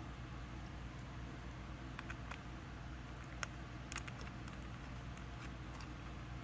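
A few faint, scattered clicks and taps of small metal carburetor parts being handled as the float bowl is fitted back onto a small-engine carburetor, over a steady low hum.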